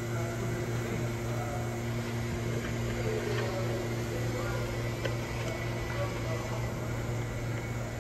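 A steady low hum over faint room noise, with a few faint small clicks.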